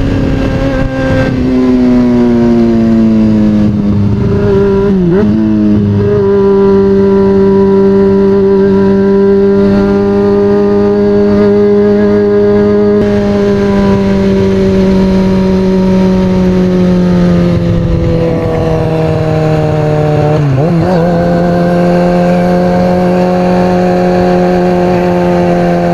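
2003 Kawasaki ZX-6R's 636 cc inline-four running loud through an aftermarket exhaust while riding, holding a steady high-revving note. The pitch wavers briefly twice, about 5 and 20 seconds in, each time settling a little lower.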